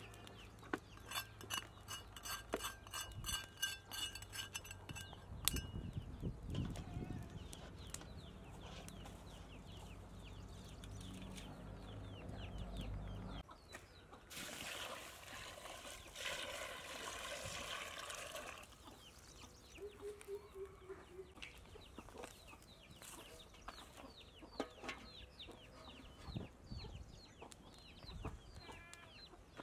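Outdoor ambience of bird and farm-animal calls: a quick run of repeated chirps early on, a longer harsh call lasting about four seconds around the middle, and many short chirps after it.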